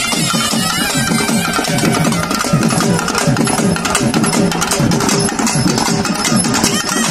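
Festival band of double-headed barrel drums and stick-beaten frame drums playing a fast, driving rhythm, with a reed horn playing a melody over it.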